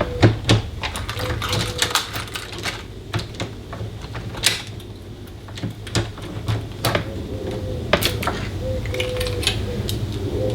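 Irregular sharp metallic clicks and knocks as an old door lock and its handle parts are taken apart and pulled off the door by hand, over a low steady hum.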